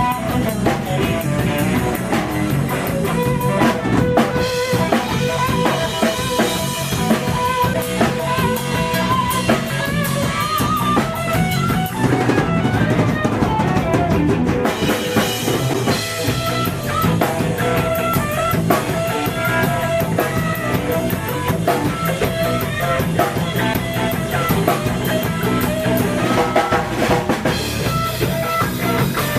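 Live trio playing an instrumental passage: guitar over a drum kit, with no singing.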